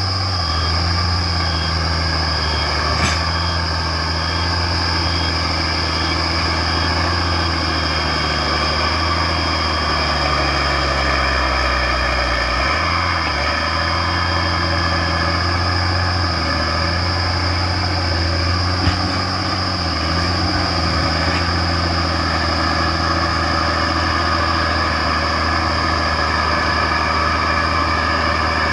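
Komatsu D50A crawler bulldozer's diesel engine running steadily under load, with a constant high whine above the engine note. About halfway through, the engine pitch sags and shifts as the blade takes up material, then settles again.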